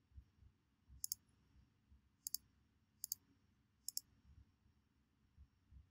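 Faint computer mouse clicks, four sharp double ticks (press and release) about a second apart, as tools and the canvas are clicked in a paint program.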